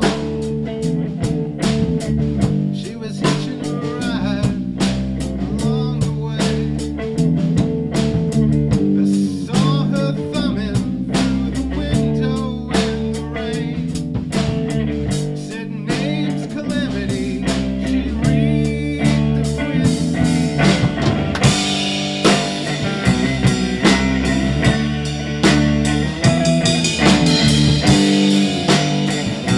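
Live band playing a blues-rock song: guitar over a drum kit, getting brighter and fuller about two-thirds of the way in.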